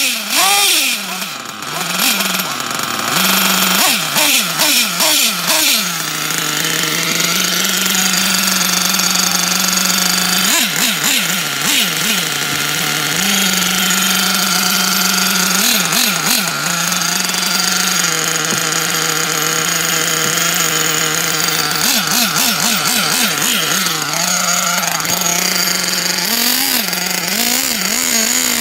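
Small glow-fuel nitro engine of a Kyosho Inferno NEO ST 3.0 RC truggy running: a steady buzzing idle broken by repeated short throttle blips that rev up and fall back. The glow igniter is on the plug at the start as the freshly started engine warms up.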